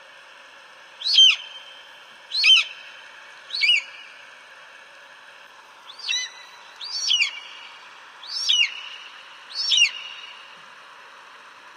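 Eagle calling: a series of seven short, high, piercing cries, each sweeping downward in pitch, about one every second or so with a longer pause near the middle. A steady hiss lies beneath.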